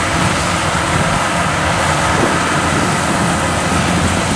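Diesel engines of a Kubota rice combine harvester and the small tractor cart beside it, running steadily at an even level with a low, rapid pulse.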